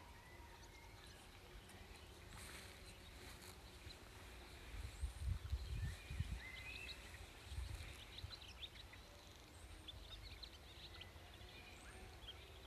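Faint rural outdoor ambience: small birds chirping, one repeating a short high call every couple of seconds, with gusts of wind rumbling on the microphone about five to eight seconds in.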